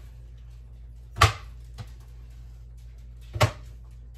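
Large kitchen knife chopping through a bar of hard baking chocolate onto a cutting board: two sharp chops about two seconds apart, with a faint tap between them.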